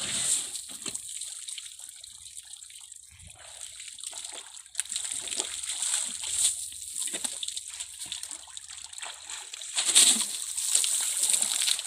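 An elephant splashing and sloshing water in a pond, throwing it over its body with its trunk to cool off, with the loudest splash about ten seconds in.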